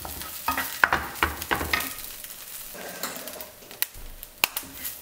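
Kelp and day-lily strips sizzling in oil in a hot nonstick frying pan, stirred quickly with a wooden spatula. The spatula scrapes and knocks against the pan at irregular moments, with sharp clicks about a second in and again near the end.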